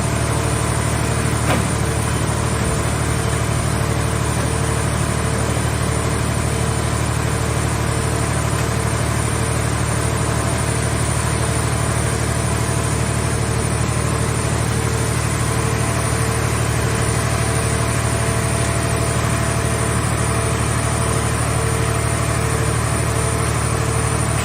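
A scrap-car baler's power unit running steadily with a low, even hum, with one faint click about a second and a half in.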